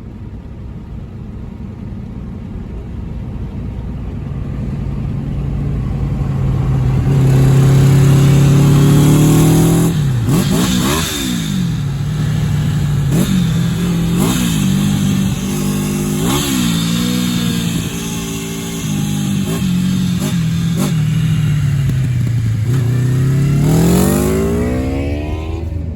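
1984 Honda Nighthawk CB700SC's inline-four engine through its F1 exhaust, revving. It builds louder over the first several seconds and holds a steady pitch. Then it drops and climbs in pitch several times in quick succession, and near the end falls away and sweeps back up.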